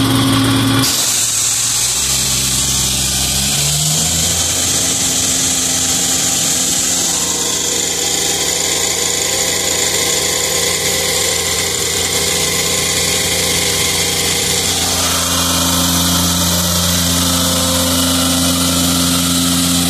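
Compressed air hissing out of a Sullivan rotary screw compressor as its outlet valve is opened about a second in, while the compressor's Deutz common-rail diesel engine speeds up in steps under the air demand and settles at about 2600 rpm.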